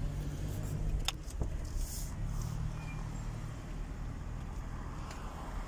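Steady engine and road-noise rumble of a moving car, heard from inside the cabin, with a single sharp click about a second in.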